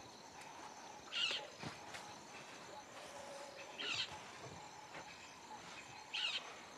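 An African elephant scraping and kicking at dry sand with its front foot, digging for water under a dried-up riverbed: three short scuffs of sand about two and a half seconds apart, over faint outdoor ambience.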